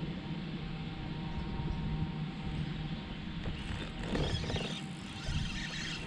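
A motor running steadily as a low hum, with a brief louder rustle or splash about four seconds in.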